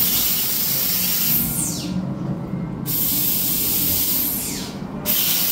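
Hissing steam effect in the Nautilus engine room, let off in repeated blasts about every two and a half seconds, each starting sharply and fading away, over a low steady machinery hum.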